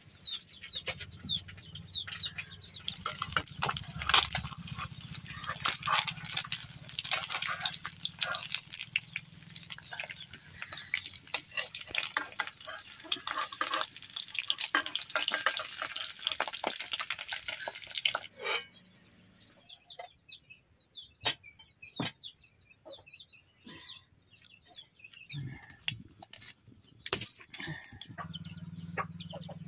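Fish pieces sizzling and crackling in hot oil in a wok; the dense crackle cuts off abruptly a little past halfway, leaving only scattered sharp clicks.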